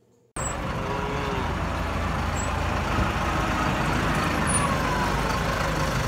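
Diesel engine of an SZM 932 wheel loader running steadily as the machine drives, a low even rumble that cuts in suddenly just after the start.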